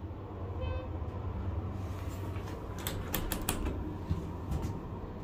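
A quick cluster of sharp clicks about three seconds in, over a steady low hum, with a brief faint tone near the start.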